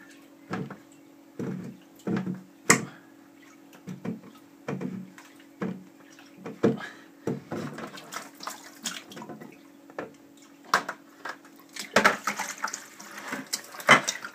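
Water splashing and draining from a plastic reverse osmosis filter housing as it is unscrewed by hand over a plastic bucket, with irregular knocks and creaks of the plastic. Near the end comes a quick run of clattering as the wet cartridge is handled inside the bucket.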